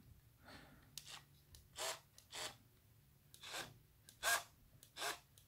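A person breathing close to the microphone: several short, irregular breaths, with a single light click about a second in as the cordless drill is handled. The drill's motor is not running.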